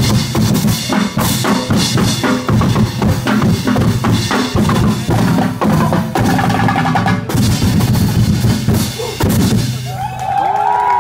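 Percussion band playing fast, loud drumming on congas, cymbals and large barrel drums, many strikes in a driving rhythm. The drumming stops near the end and voices shout.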